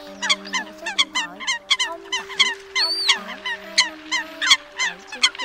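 Eurasian coots calling: a quick, dense series of short, sharp calls from several birds, with one longer call that rises and falls about three seconds in.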